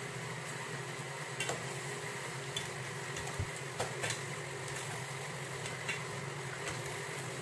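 Metal spoon stirring raw chicken pieces into a thick spice masala in a stainless steel pot, with a handful of light clinks and scrapes against the pot.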